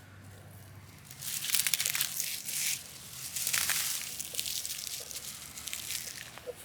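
Dry dead weeds and grass crunching and crackling, with a rustle that starts about a second in and comes in several waves.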